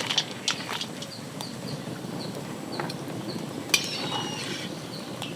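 A small bird chirping over and over in short, high, falling notes, with a few light knocks, the sharpest about three and a half seconds in.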